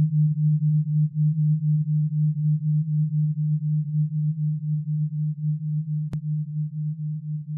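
A steady low electronic sine tone, pulsing rapidly several times a second as an alpha-wave brainwave tone for tinnitus relief. It grows slightly quieter toward the end, and there is a faint click about six seconds in.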